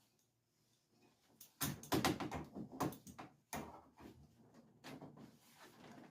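Knocking and rattling, as of hard objects being handled: a sudden loud burst about a second and a half in, then a second sudden knock about two seconds later that fades, with smaller knocks after.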